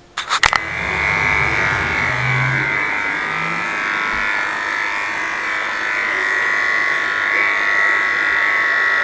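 A few clicks, then a small electric motor starts and runs steadily with an even, high-pitched whine.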